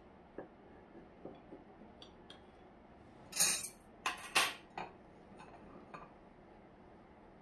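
Light clinks and knocks of small hard objects being handled, with a few louder clattering sounds about three and a half to five seconds in.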